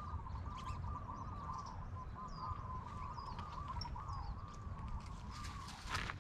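A bird calling in a rapid, unbroken run of looping, warbling notes, with fainter high chirps from other small birds above it. A couple of sharp knocks come near the end.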